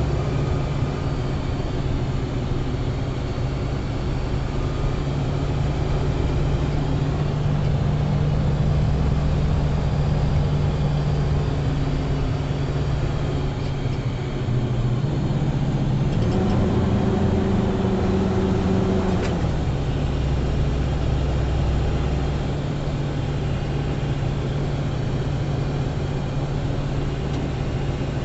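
Car engine running steadily with road noise. Its pitch goes up for about three seconds past the middle, then drops back.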